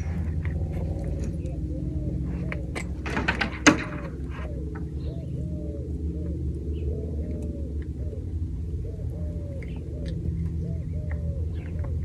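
Saddle girth being tightened by hand, with light clinks and rubbing of strap and buckle, a sharp knock about three and a half seconds in, and a run of faint repeated squeaks. A steady low hum underlies it all.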